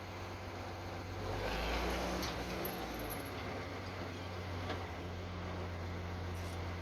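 M35A2 Deuce and a Half's multifuel turbodiesel engine running, swelling louder for a second or so about a second and a half in, then settling back to a steady run.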